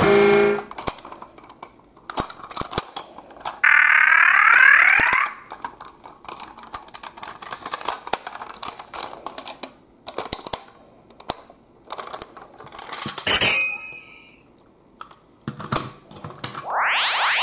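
Clicks and snaps of hard plastic parts as a toy train engine is folded by hand into a robot. About four seconds in, a loud tone with wavering pitch lasts about a second and a half, and near the end a rising sweeping tone begins.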